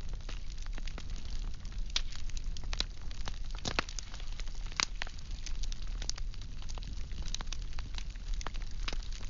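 Firewood burning, with irregular sharp crackles and pops over a steady low rumble and soft hiss.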